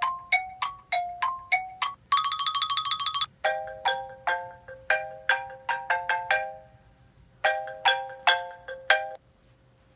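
iPhone ringtone melody with plucked notes, then a rapid trill of one repeated note about two seconds in, then chiming chords that stop about nine seconds in.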